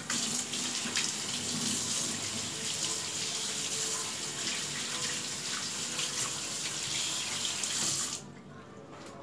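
Water running hard from a tap into a sink as hands are washed. It is shut off about eight seconds in.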